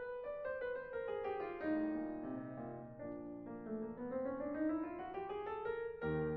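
Background piano music: a run of notes that falls and then climbs back up, with a new low chord coming in near the end.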